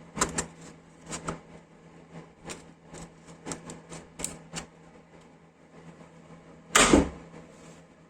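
Scattered light clicks and knocks of hard objects being handled, with one louder thump about seven seconds in, over a faint steady hum.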